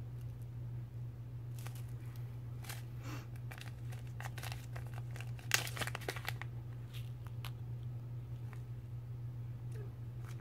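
Small plastic zip-top bag of dried herb being handled and opened, crinkling with scattered clicks and crackles, loudest in a cluster about five and a half seconds in, over a steady low hum.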